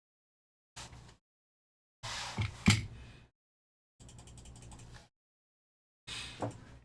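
Trading-card packs and cards being handled: short bursts of rustling and a few sharp clicks, with dead silence between them from a noise gate.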